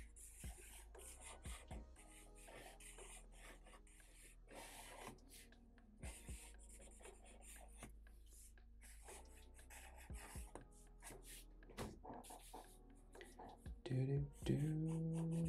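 Black felt-tip marker scratching across drawing paper in many quick, short strokes, over faint background music. Louder low tones come in about a second before the end.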